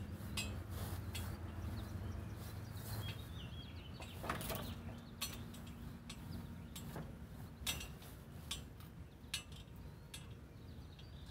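Scattered metallic clinks and knocks from a heavy post hole digger auger and the chain hoist it hangs from, as the auger is shifted and walked backwards by hand.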